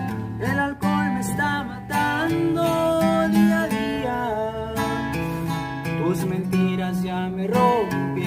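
Acoustic guitar strummed and picked, playing a song's opening chords, which change every second or so.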